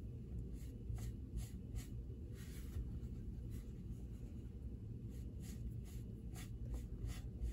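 Ink blending brush rubbing and dabbing ink onto the edges of a small cardstock butterfly, in short, irregular brushing strokes about one or two a second, over a faint steady hum.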